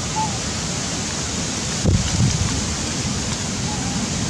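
Steady wind noise buffeting the microphone, with a brief low thump about two seconds in.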